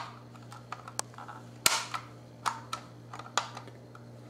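Hard plastic clicks and taps from handling and fitting parts on a Playmobil Volkswagen Beetle toy car, a few sharp clicks spaced about a second apart, over a steady low hum.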